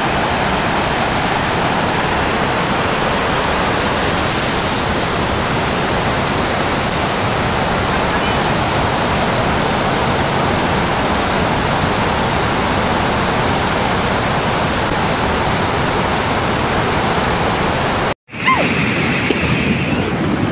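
Foaming white water rushing down a concrete spillway channel, a loud, steady rush of water. It cuts off abruptly about 18 seconds in, and a different outdoor sound follows.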